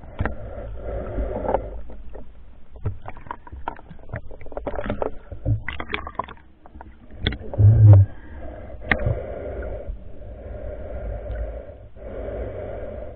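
Muffled water sounds of a swim heard from a camera underwater: sloshing and bubbling with scattered clicks and knocks, and a heavy low thump about eight seconds in.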